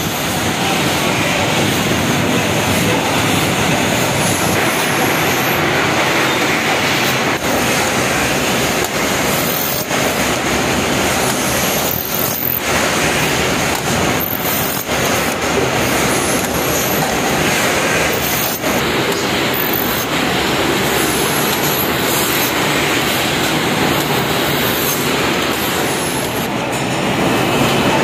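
Belt-driven lathes running while brass plug pins are turned and cut: a dense, steady machine noise with brief high chirps now and then.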